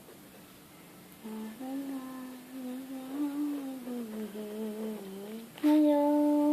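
A female voice humming a wandering tune without words, then a louder held note near the end.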